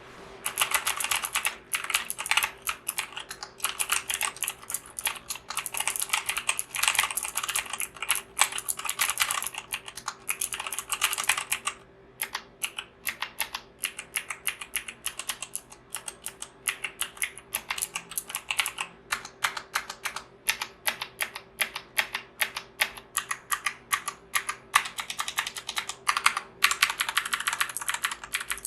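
Typing on a Punkston TH61 keyboard with clicky optical blue switches. Fast runs of keystrokes give way to slower, separate presses about twelve seconds in, and fast typing picks up again near the end.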